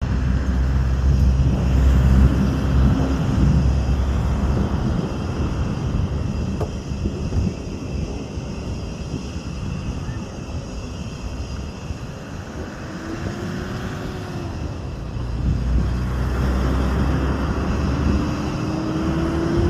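A motor vehicle engine running with a steady low rumble that swells and fades, its pitch rising and falling briefly twice near the end.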